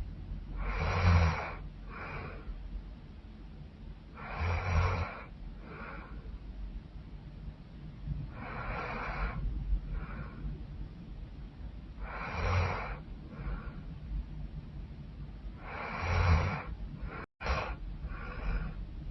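A woman snoring loudly in her sleep: five loud, rasping snores about every four seconds, each followed by a shorter, softer breath.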